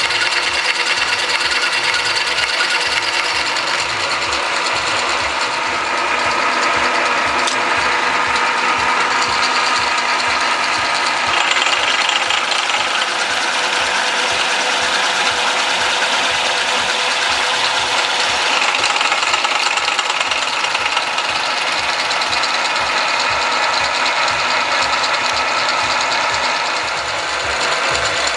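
VM-130 milling machine running and cutting metal: a steady mechanical clatter with a fast, even rattle.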